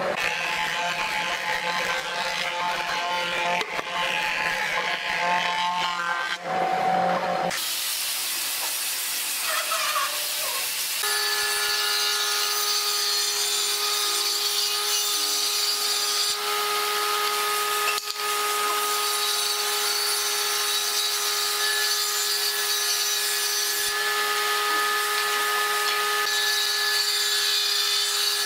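Woodworking thickness planer running for the first seven or so seconds, its pitch shifting a little. Then a Hitachi table saw runs, settling about 11 s in into a steady, even whine with its blade spinning free.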